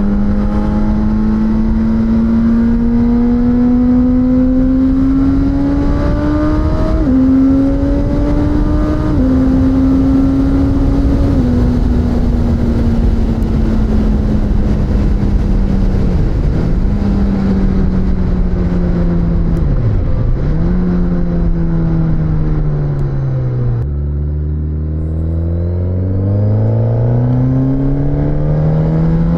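Suzuki GSX-S1000's inline-four engine at riding speed, heard on board under heavy wind rush. It pulls up through the revs and shifts up twice about a quarter of the way in. It then slows on the overrun with two quick downshifts, drops to low revs about four-fifths of the way in, and accelerates hard again.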